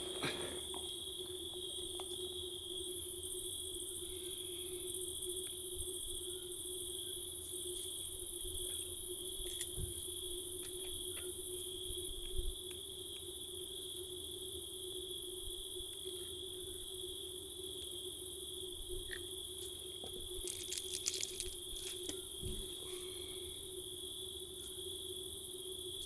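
Steady chorus of insects, crickets chirping at a high pitch with a still higher layer above them, over a lower steady hum. A few soft clicks and taps come and go, most of them clustered a little after two-thirds of the way in.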